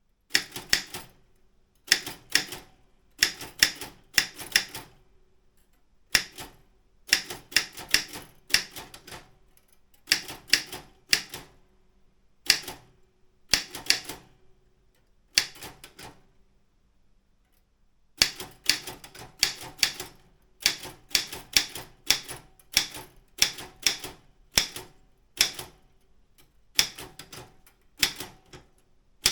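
Daro Optima M16 typewriter being typed on: sharp keystrokes in quick clusters with short breaks between them, and a pause of about two seconds just past the middle.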